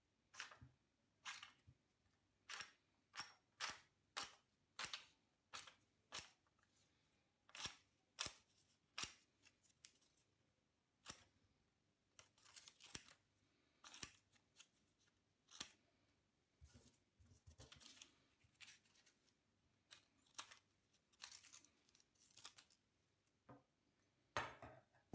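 Restored old steel scissors snipping through thin paper card again and again: a run of crisp, separate snips, about one or two a second, quickening into short flurries and loudest near the end. It is a cutting test of the freshly restored blades.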